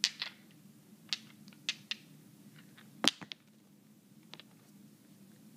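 Small glass nail polish bottles being handled: a string of sharp clicks and taps as bottles and fingernails knock together, the loudest about three seconds in.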